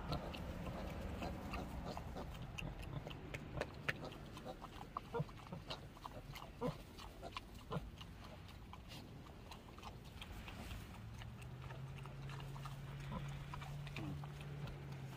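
A sow and her day-old piglets moving about in straw, with many short, irregular pig sounds and clicks over a low steady hum.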